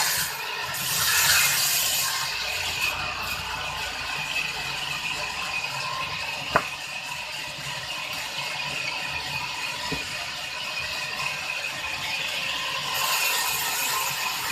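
Large sawmill band saw running and ripping a timber plank lengthwise: a steady cutting noise with one sharp knock about halfway through. The cutting grows louder near the end.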